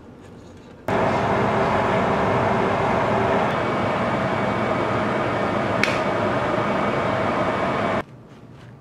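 A pot of water at a rolling boil, bubbling and hissing steadily, with a faint steady hum under it; it starts abruptly about a second in and cuts off abruptly near the end.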